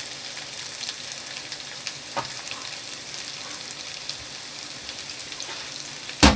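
Quail pieces frying in freshly added olive oil in a nonstick pan: a steady sizzle and crackle as a wooden spatula stirs them. A sharp knock comes near the end.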